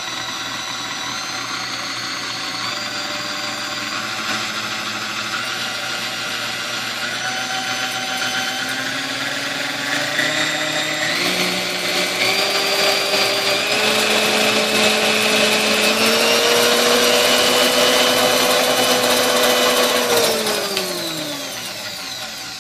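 Hamilton Beach Model 7FM stand mixer's motor running, its whine stepping up in pitch several times as the speed is turned up, then switched off about 20 seconds in and winding down. It runs smoothly: the freshly restored mixer sounds excellent.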